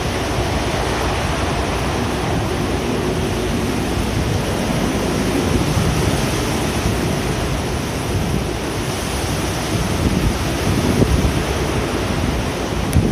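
Typhoon-force wind blowing hard and steadily, its gusts buffeting the microphone.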